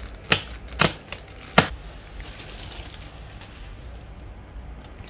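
Cardboard keyboard box being opened by hand: three sharp snaps or clicks of the packaging in the first two seconds, then faint rustling.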